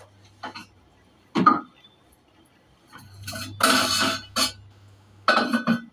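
Steel kitchen utensils and containers clinking and clattering as they are lifted and set down on a shelf: a handful of short knocks, the sharpest about a second and a half in and a busier run of clatter around the middle.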